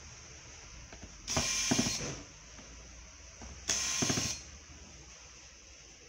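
Small electric precision screwdriver running in two short bursts, about a second and a half in and again near four seconds, whining with a clicking rattle as it backs out the screws of a Samsung Galaxy J7 Prime's midframe.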